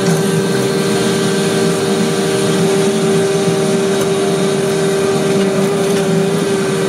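Vacuum paver-laying machine running steadily: a constant engine drone with a steady humming tone over it.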